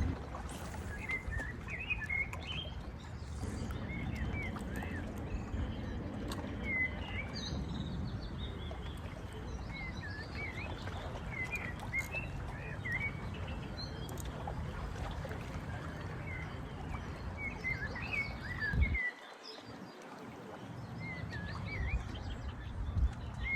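Small birds chirping repeatedly in short calls, over a steady low rumble of outdoor noise that drops away briefly near the end.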